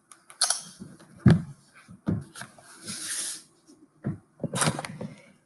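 Handling noise of a tablet in a leather folio case being gripped, moved and set down on a table: several sharp knocks, the loudest a little over a second in, and a brief rustle or scrape around the middle.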